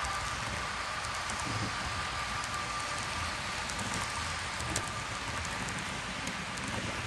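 Model trains running on a layout: a steady rolling hiss from the wheels on the track, with a thin steady whine and scattered light clicks.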